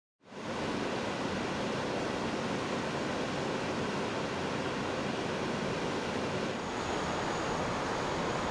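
Steady rush of water spilling over the weir of the Ljubljanica sluice gate. About two-thirds of the way through, the noise dips briefly and a faint, high, steady tone joins it.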